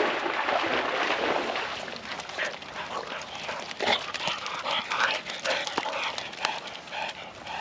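English springer spaniels giving short whines and barks in repeated bursts while chasing a tennis ball. A rushing noise fills the first second and a half.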